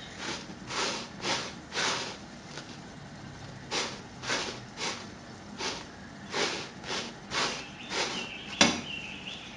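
Puffed semolina batbout flatbread being slid and turned by hand on a dry flat griddle pan: short rubbing swishes, roughly two a second, with a pause about a third of the way in. A sharp knock near the end is the loudest sound.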